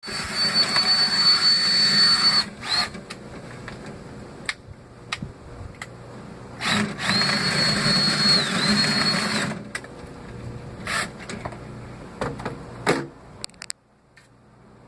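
Power drill spinning a dryer-vent cleaning brush in two runs of a few seconds each, its whine dipping briefly in the second run, with knocks and clatter between and after.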